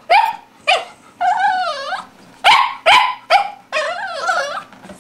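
Dog barking in short, sharp, high yaps, about five of them, broken by two longer wavering, warbling cries, one after the first pair of barks and one near the end.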